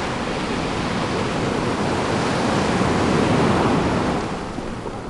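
Ocean surf: a rush of a breaking wave that swells to its loudest about three seconds in, then washes away.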